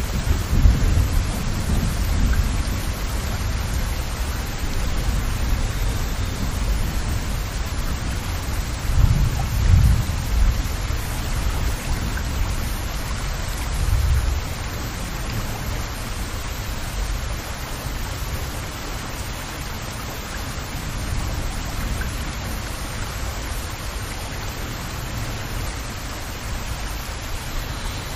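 Steady rain falling, with a low rumble underneath that swells briefly twice, about nine and fourteen seconds in.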